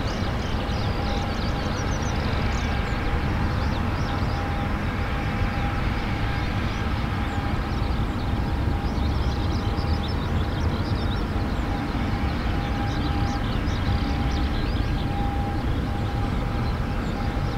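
Steady drone from a parked Boeing 787-8 airliner at the gate: a low rumble under a steady whine, with faint high chirps above it.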